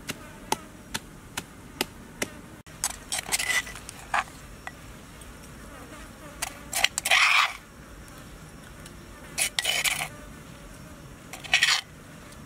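A wooden pestle knocking in a clay mortar, about two strikes a second, for the first two seconds. Then a cleaver blade scraping chopped red chili off into a ceramic bowl, in four or five short scrapes.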